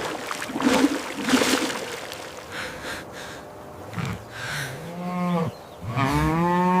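A cow mooing: two long moos in the second half, after a few seconds of rough noise.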